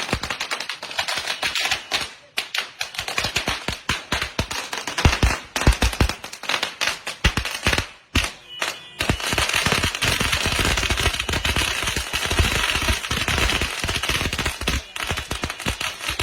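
A string of firecrackers going off in a rapid, crackling run of bangs. It pauses briefly about eight seconds in, then carries on denser and more continuous.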